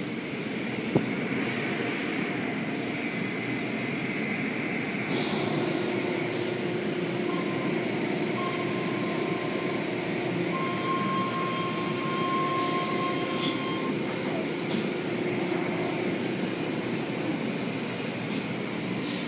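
Automatic tunnel car wash equipment running: a steady wash of spraying water and turning brushes. About five seconds in it gets louder and brighter, and a steady machine hum with a higher whine runs through it until near the end.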